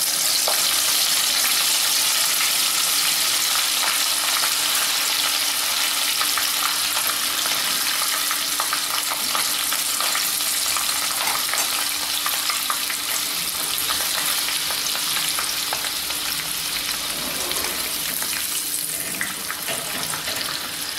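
Spice-and-cornflour-coated banana flower florets sizzling loudly in hot oil in a nonstick kadai, loudest as they first go in and easing slightly over time. A metal ladle stirs them with scattered clicks against the pan, more of them near the end.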